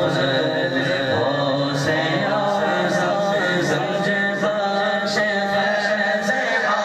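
A group of men's voices chanting together in a steady, continuous devotional chant.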